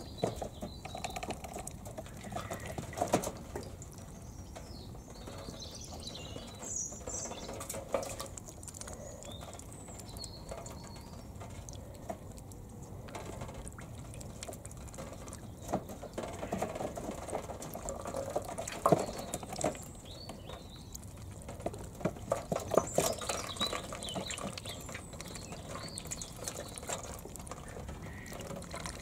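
Month-old Indian Runner ducklings splashing and dabbling in a shallow tray of water, with high peeping chirps now and then and scattered sharp taps.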